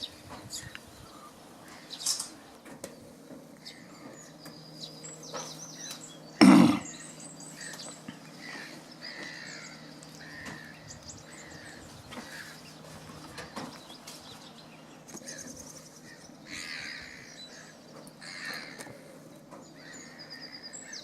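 Small birds chirping and twittering on and off, with one loud thump about six and a half seconds in.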